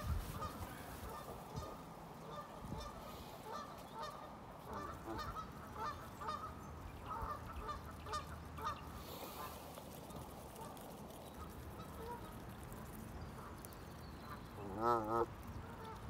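Canada geese giving short, quiet calls, several a second at times, through the first half, then one louder honk with a wavering pitch about a second before the end.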